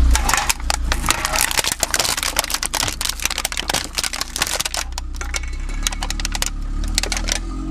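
Crunchy objects cracking and crackling as a car's tyre rolls over and crushes them: a dense rapid run of sharp cracks for the first five seconds or so, thinning to scattered snaps later, over the low hum of the car's engine.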